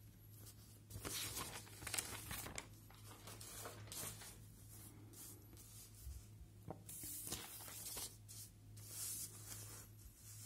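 Faint rustling and scraping of paper sheets being shifted and handled, coming irregularly throughout, over a steady low hum.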